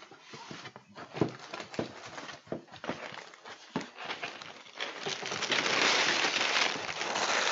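Cardboard box handled, with scattered knocks and scrapes as its lid comes off, then a heap of empty plastic LEGO parts bags rustling and crinkling as they pour out of the tipped box from about five seconds in.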